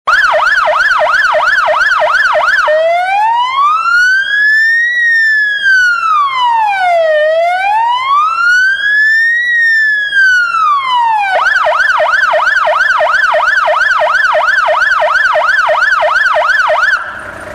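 Elektro Arola Ulvo-Sirra Pro electronic siren sounding through a roof-mounted Elektro Arola HPP-100 100 W loudspeaker. It opens with a fast yelp of about three to four sweeps a second, switches about 3 s in to a slow wail that rises and falls twice, then goes back to the fast yelp until it cuts off near the end.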